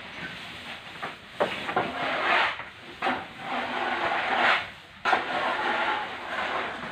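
Stiff broom swept in repeated strokes across a wet barn floor, scraping and rustling as it pushes dung along, with irregular gaps between strokes.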